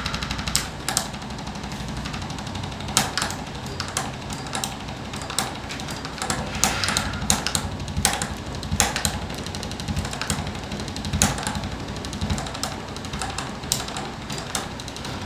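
Irregular short knocks and clicks from hands and body moving on a chiropractic treatment table during an adjustment.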